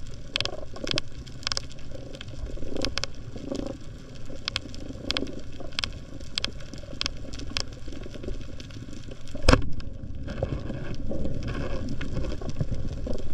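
Underwater recording over a coral reef: a running crackle of sharp clicks over a low rumble of water, then about nine and a half seconds in a single loud snap as a speargun is fired.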